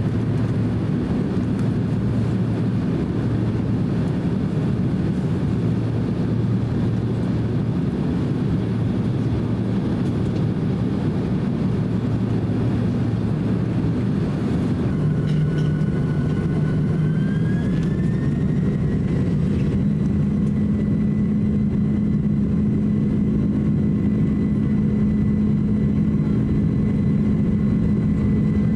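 Cabin sound of a Boeing 767-300 by its engine, a steady rumble of the turbofans at low power while taxiing. About halfway through the engines spool up: a whine rises in pitch over several seconds, then holds steady and a little louder as thrust is set for the takeoff roll.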